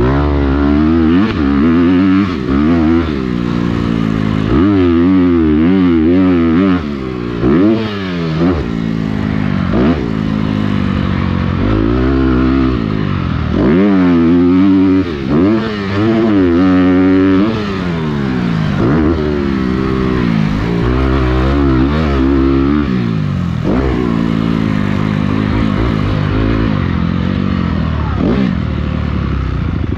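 Motocross dirt bike engine heard from on board while racing, revving up and dropping back again and again as the throttle is worked and the gears change. In places the pitch wavers rapidly up and down several times a second, as the throttle is rolled on and off in quick succession.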